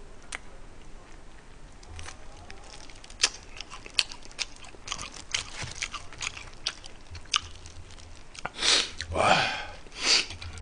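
Close-miked chewing of fried chicken, with a run of sharp, crisp crunches. The mouth noises grow louder near the end.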